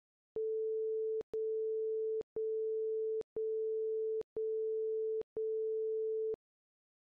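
Interval timer beeping out the last seconds of a round's countdown: six long, steady, mid-pitched beeps, one a second, each cutting on and off sharply.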